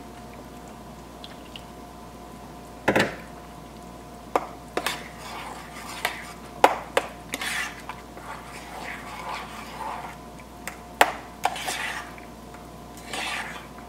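Metal utensil clinking and scraping against a small saucepan while whisking broth into a thick flour-and-butter paste for gravy, with a sharp knock about three seconds in and a run of clinks after it. A faint steady hum runs underneath.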